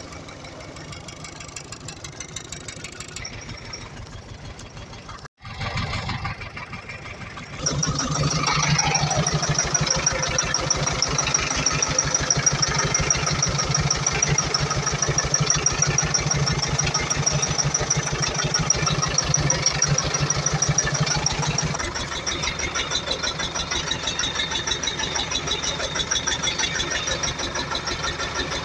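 Iveco Eurocargo Tector's common-rail diesel engine idling with a steady run of firing pulses. It grows louder about 8 seconds in and drops back somewhat around 22 seconds. The idle is rough because of a defective electro-injector.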